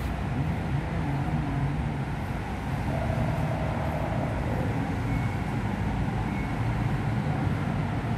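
Steady low rumble of Skytrain station background noise, the kind of sound trains and road traffic make, with two brief faint high tones about five and six seconds in.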